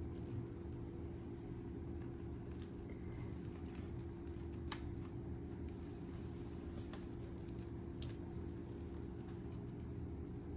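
Light clinks and ticks of metal chain and seed beads as tangled necklaces are handled and worked loose, with one sharper click about eight seconds in, over a steady low hum.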